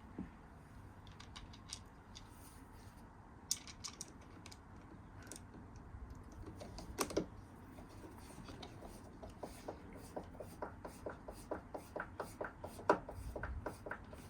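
Hand screwdriver turning screws into wood to fasten a doorbell mounting plate: a few scattered knocks and clicks, then a steady run of light clicks about four a second through the second half.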